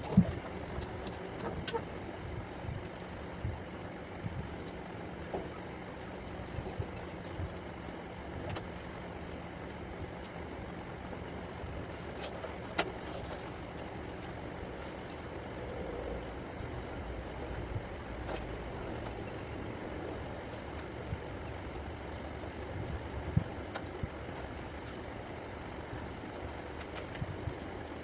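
Steady motor vehicle noise with a few light clicks and knocks.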